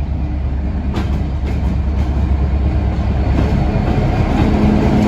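Class 66 diesel-electric locomotive, with its two-stroke V12 engine, passing on an engineers' train: a steady low engine drone that grows slowly louder, with a click about a second in.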